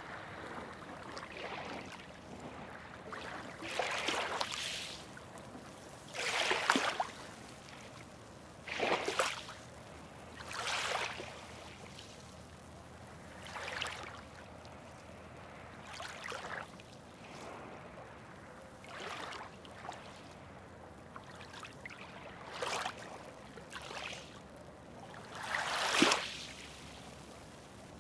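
Small waves lapping and splashing, one wash every two to three seconds over a faint steady water hiss, the loudest splash near the end.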